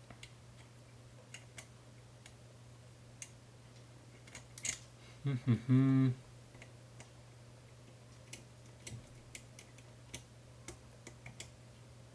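Light, scattered clicks and ticks of a lock pick working the rotating pins of a 5-pin Medeco cam lock, over a steady low hum. A short hummed sound from the picker comes about five seconds in.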